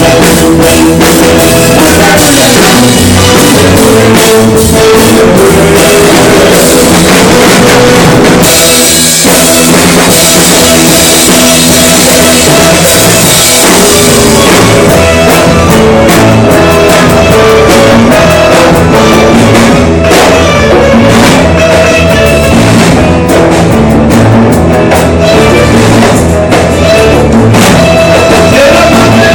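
Rock music played loud, with a drum kit keeping a steady beat under bass and other instruments.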